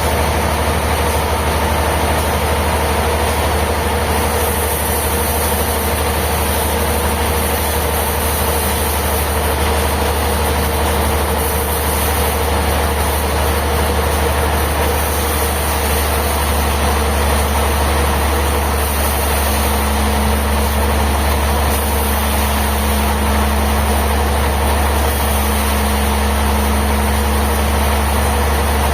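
Sawmill machinery running steadily, a constant low drone with a steady hum above it.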